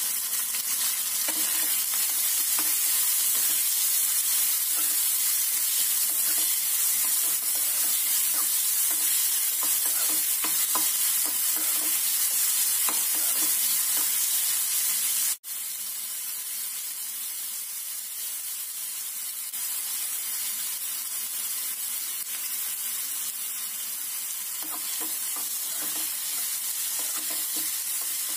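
Chopped onion, cashews and green chilli frying in oil in a metal kadai, sizzling steadily, while a spatula stirs and scrapes against the pan in repeated strokes. The sound drops out for an instant about halfway, and the sizzle is a little quieter after that.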